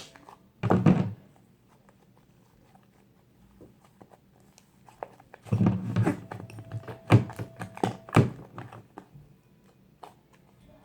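Hands squishing and pulling fluffy slime: a short squelch about a second in, then a run of wet clicks and pops for a few seconds near the middle.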